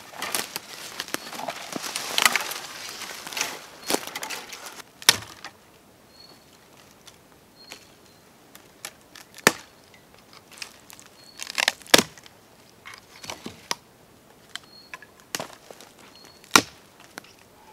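Rustling and crackling for about five seconds, then sharp single cracks a few seconds apart, four of them loud, with softer ticks between.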